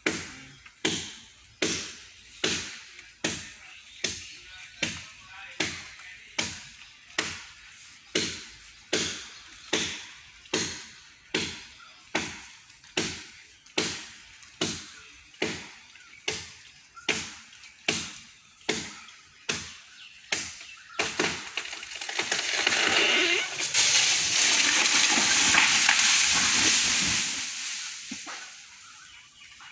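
Steady, evenly spaced chopping strikes on wood, about three every two seconds. About 21 seconds in they stop and a loud rushing noise swells up, holds for several seconds and dies away.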